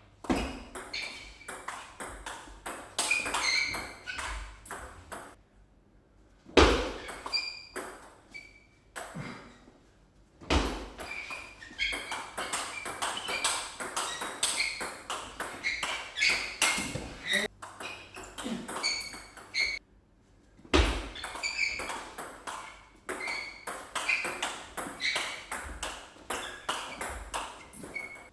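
Table tennis rallies: a celluloid/plastic ball clicking off the rackets and bouncing on the table in quick alternation. There are four rallies, with short pauses between them about five, ten and twenty seconds in.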